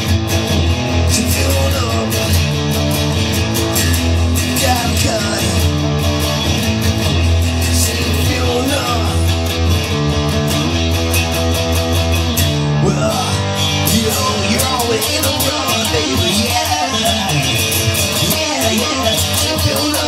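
Instrumental music led by guitar, over a steady bass line that moves between held notes.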